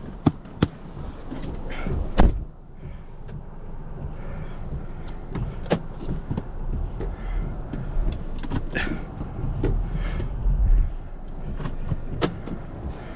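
A car running and moving slowly over snow, with scattered clicks and knocks and one loud thump about two seconds in.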